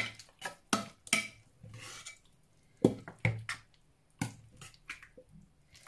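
Metal ladle scraping and knocking against a large cooking pan while scooping out the last of a thick soup: about seven sharp clinks, with quieter scraping between them.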